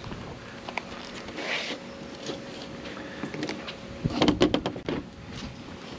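Light knocks and clatter of a metal window screen frame and a roll of screen mesh being handled and shifted on a folding table, with a quick run of clicks about four seconds in.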